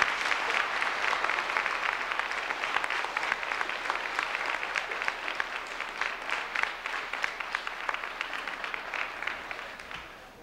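An audience applauding, loudest at the start and dying away near the end.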